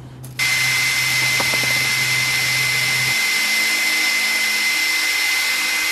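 Cordless drill starts about a third of a second in and runs at a steady speed with a steady high whine, a tiny bit drilling a pilot hole into a snapped-off stud.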